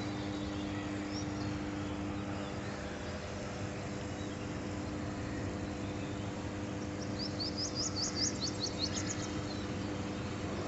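Energized oil-filled power transformer humming steadily, a low hum of several steady tones. About seven seconds in, a bird adds a quick run of high chirps lasting a couple of seconds.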